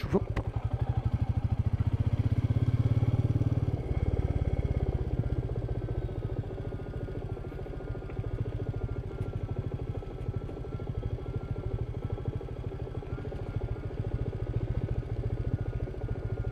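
Royal Enfield Meteor 350's single-cylinder engine running on the move, pulling harder with a rising note for the first few seconds, then easing off about four seconds in and carrying on at a steady, lower level.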